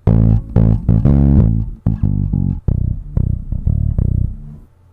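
Recorded bass line: a run of plucked bass notes, starting abruptly and stopping about half a second before the end.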